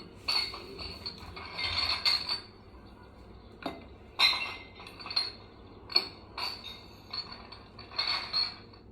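Glass clinking and jangling: a run of irregular glass-on-glass strikes with a lingering high ring. There is a long jangle in the first couple of seconds, then separate clinks every second or so.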